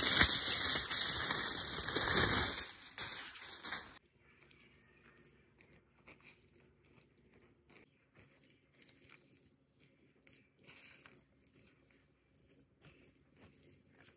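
Aluminium foil crinkling as it is pulled off a baking tray, for about the first four seconds; then near silence.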